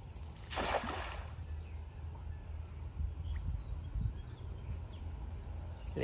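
A hand-thrown cast net landing on a pond's surface: one short splash about half a second in, then only a steady low rumble.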